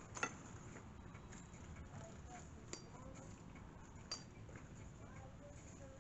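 A few sharp clinks of metal parts or tools being handled, the loudest just after the start and two lighter ones around three and four seconds in, over a faint background.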